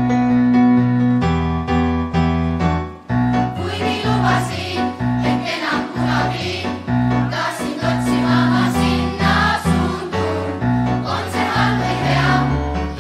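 Upbeat pop backing music led by keyboard, then from about three seconds in a large choir of children and adults sings over it.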